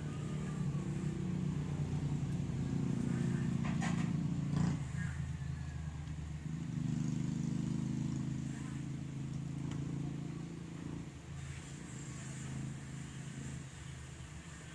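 Low motor hum with a steady pitch that swells and fades twice, with two sharp clicks about four seconds in.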